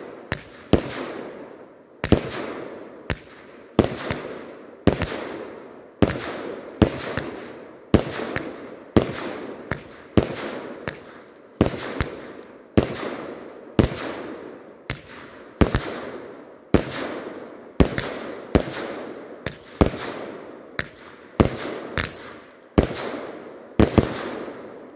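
Planet X Fireworks 'First Order' 25-shot consumer cake firing: a steady series of sharp bangs about once a second, each trailing off before the next.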